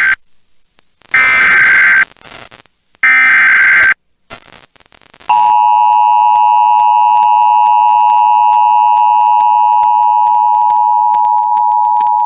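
Emergency Alert System activation over FM radio. The SAME digital header plays as three buzzy data bursts about a second long each, with short gaps between them; the first ends just at the start. About five seconds in, the steady two-tone EAS attention signal begins and holds. It opens a severe thunderstorm warning.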